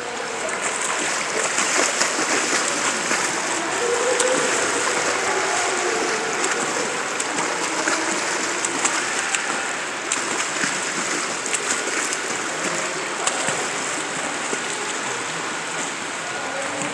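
Steady splashing of a child swimming through pool water, kicking with swim fins and stroking with the arms.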